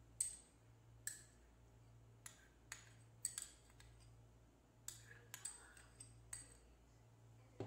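Metal spoon clinking and tapping against a ceramic bowl and the plastic jar of a grinder as sauce is scooped in: about ten light, separate clinks at uneven intervals.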